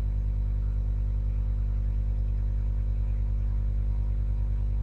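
A steady low electrical hum, a buzz at mains frequency with its overtones, running unchanged on the microphone recording.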